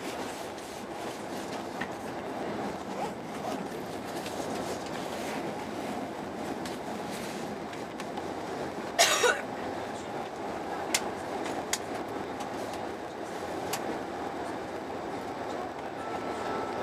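Steady rolling rumble of a Eurostar Italia train heard from inside the passenger carriage while it runs at speed. A short loud burst comes about nine seconds in, followed by a few sharp clicks.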